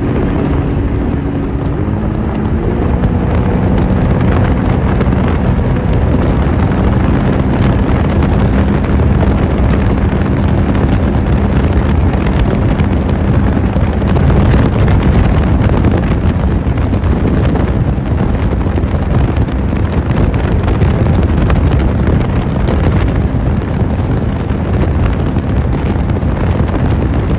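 Sea-Doo RXT 300 personal watercraft engine speeding up in two quick steps in the first few seconds, then running steadily at speed. Wind buffets the microphone, and from about halfway through its rush covers most of the engine tone.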